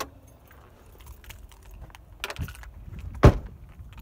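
Scattered clicks and knocks, with one loud sharp thump a little past three seconds in, over a faint low rumble.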